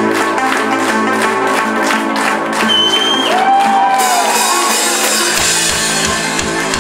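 Live ska-punk band playing onstage with guitars and drums, and shouts and cheers from the audience rising over it near the middle. A steady kick-drum beat comes in about five and a half seconds in.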